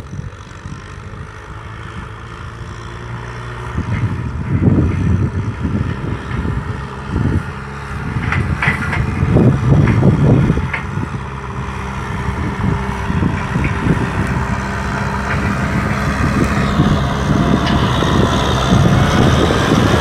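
Kubota M6040SU tractor's diesel engine running under load while it pulls a disc harrow through dry field soil, getting louder as it comes closer. There are rougher, louder stretches about four and about ten seconds in.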